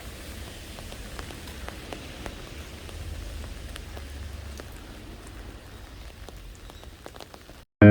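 A steady hiss with scattered faint ticks, which cuts off abruptly near the end.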